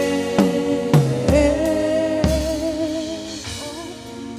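Gospel worship music: a singer holds a long note with vibrato over sustained keyboard chords, with a few drum hits in the first half. It grows softer toward the end.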